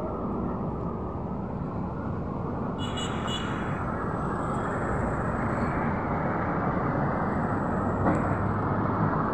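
Steady road traffic noise from cars passing on the street, a continuous rumble that grows a little louder toward the end. A brief high-pitched squeal comes about three seconds in.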